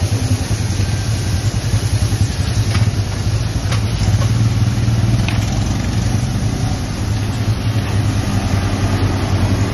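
An engine running steadily at idle, with a few faint ticks in the middle.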